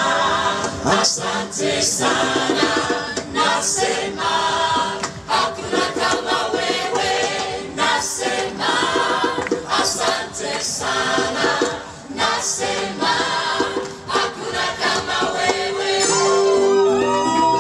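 Gospel choir singing a song in Swahili, many voices together over a steady beat.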